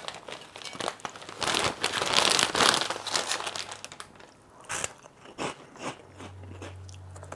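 Snack bag crinkling as Cheetos Puffs pour out of it onto a plate, followed by light scattered taps as the puffs are moved about on the plate. A low steady hum comes in about six seconds in.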